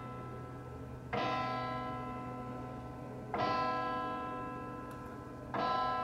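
A church tower bell tolling slowly: three strikes a little over two seconds apart, each ringing on and fading into the next.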